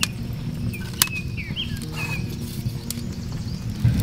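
Kindling fire crackling in a clay fireplace, with two sharp pops, the second about a second in, over a steady low rumble. Birds chirp briefly in the background.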